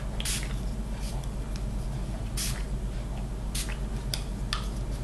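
A small fine-mist pump spray bottle of colour ink being pumped in a series of short, hissy sprays, unevenly spaced about half a second to a second apart. A steady low electrical hum runs underneath.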